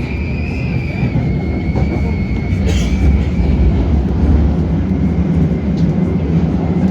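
London Underground S8 Stock train running, heard from inside the carriage: a loud, steady low rumble with a high, wavering whistle that fades away over the first few seconds and comes back faintly near the end.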